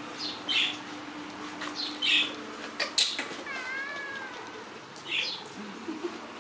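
Grey kitten meowing: one drawn-out meow just past the middle, with several short, high chirps before and after it. A sharp click comes just before the long meow.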